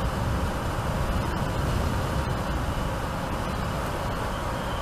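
Mercedes-Benz GenH2 hydrogen fuel-cell electric truck driving at speed: steady tyre and road noise with no combustion engine note, and a faint high whine coming in near the end.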